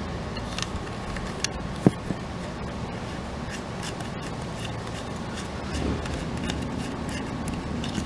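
Light clicks and scrapes of hands handling a white plastic roof cable-entry plate, with a sharp click just under two seconds in, over a steady low background hum.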